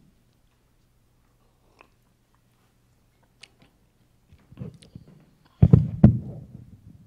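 Microphone handling noise: after a quiet stretch with a faint hum, small clicks and then low thumps and rubbing as the microphone is taken in hand, with two loud thumps near the end.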